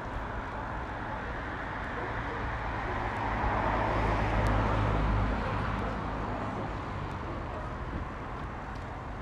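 Road traffic noise, with one vehicle passing close by: it swells about three seconds in and fades by about six seconds.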